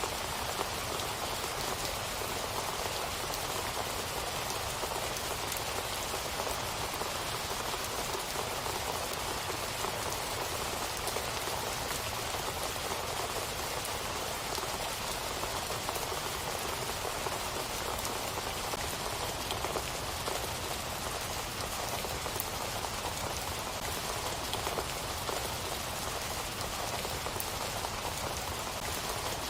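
Steady rain falling and pattering on a surface, a dense even hiss of many small drops.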